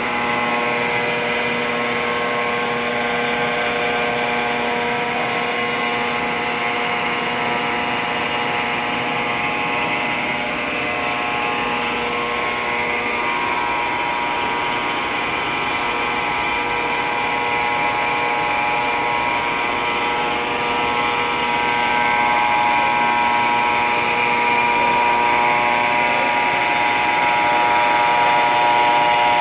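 Steady machinery hum with several steady tones, growing a little louder about two-thirds of the way through.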